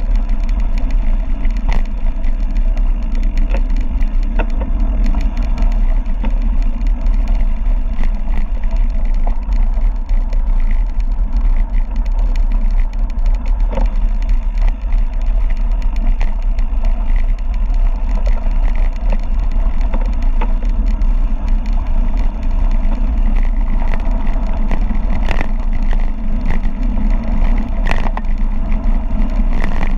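Mountain bike descending a rough dirt and gravel mountain road at speed: steady wind buffeting the microphone with tyre rumble, and scattered clicks and rattles from the bike throughout.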